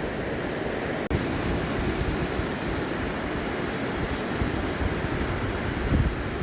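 Steady wash of ocean surf with wind buffeting the microphone, and a brief click about a second in.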